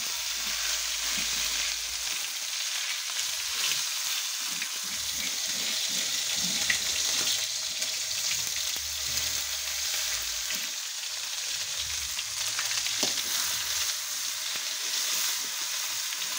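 Pounded spice paste sizzling as it fries in hot oil in a wok, stirred with a spatula, with a few short knocks of the utensil against the pan.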